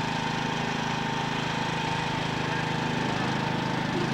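Small petrol engine of a salvage dewatering pump running steadily at constant speed.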